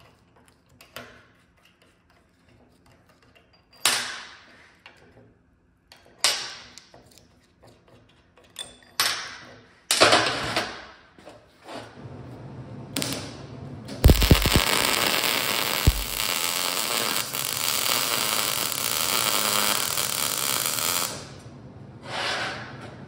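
Metal bracket parts being handled and set down with several sharp clanks, then a shop power tool running with a steady rushing noise for about seven seconds before cutting off abruptly.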